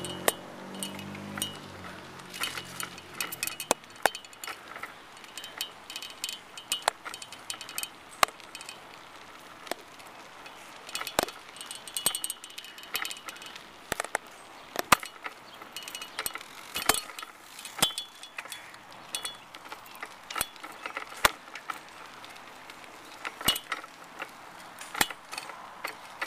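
Mongoose Ravage BMX bike being ridden: irregular metallic clinks, rattles and ticks from the chain and freewheel, with a sharp knock every second or two.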